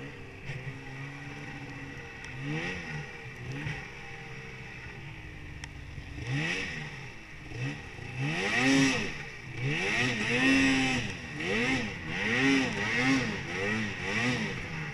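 Arctic Cat Mountain Cat snowmobile's stock two-stroke engine being ridden through deep powder. It runs fairly steadily at first, then revs up and down in quick repeated swells, about two a second, as the throttle is worked through the snow. The revving is loudest in the second half.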